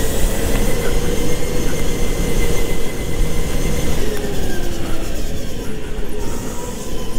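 Go-kart running at speed: a motor whine holds fairly steady, then drops in pitch after about four seconds as the kart slows, over a heavy rumble from the kart on the track.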